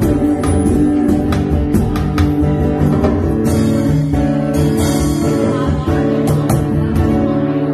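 Live band: strummed guitar with drum hits and a woman singing, the song settling onto a held chord near the end.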